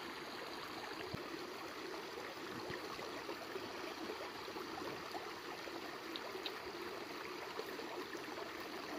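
Small shallow stream running steadily, a constant trickle and gurgle of water.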